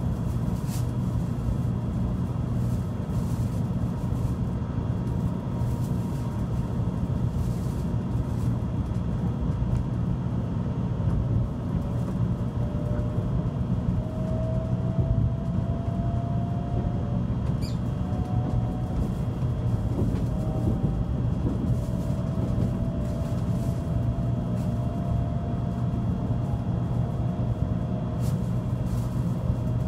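Cabin noise inside a Tokaido Shinkansen train pulling away from a station and gathering speed: a steady low rumble of the running train. From about a third of the way in, a faint whine rises slowly in pitch.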